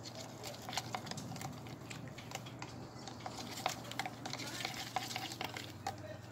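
Runny, watery slime being stirred in a container: irregular light clicks and scrapes over a faint steady hum.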